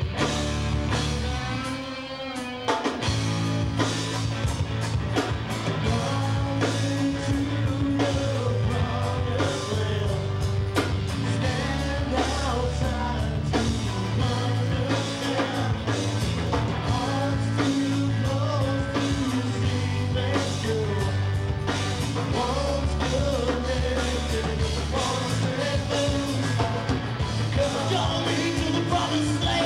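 Live rock band playing electric and acoustic guitars, with a man singing lead. It opens quieter with a short guitar lead-in, and the full band with bass comes in about three seconds in.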